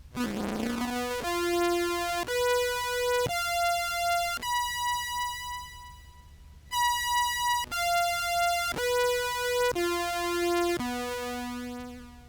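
Contrabass clarinet played through an octave pedal and a Meris Enzo synth pedal, heard as a bright synth tone: a run of held notes about a second each, stepping up to a long high note in the middle and then back down the same steps.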